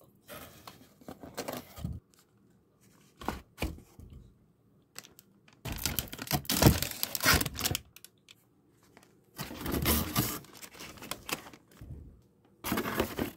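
Plastic-wrapped products crinkling and being set down in a cardboard box, in several separate bursts of handling noise. The longest and loudest burst comes about six to eight seconds in.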